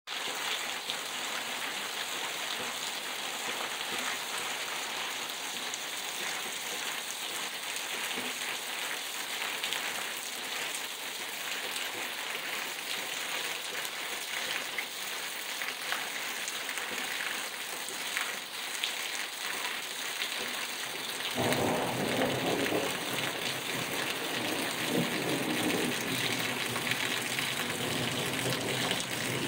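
Heavy rain pouring onto pavement and streets, a steady hiss of falling water. About two-thirds of the way through, a louder, lower noise joins in.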